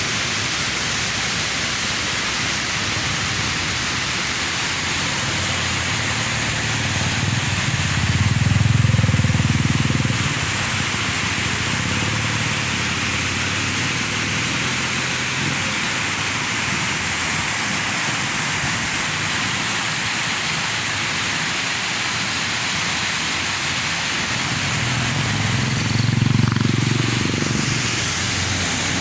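Waterfall rushing steadily, with two low rumbles swelling up briefly, one about a third of the way in and one near the end.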